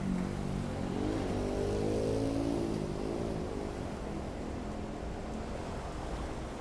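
A passing motor vehicle's engine accelerating, its pitch rising over the first few seconds, then fading into a steady background rumble.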